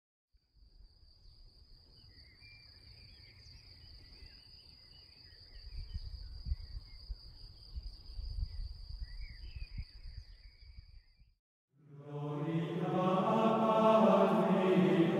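Outdoor ambience: an insect's steady high-pitched trill, a few faint bird chirps and a low rumble that grows louder about halfway through. It cuts off, and about a second later men's voices begin chanting in long held notes, monastic chant.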